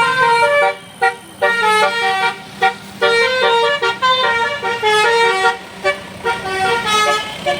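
Basuri telolet musical bus horn playing a quick tune of changing notes in short runs with brief breaks, starting suddenly and loud, over a low steady hum.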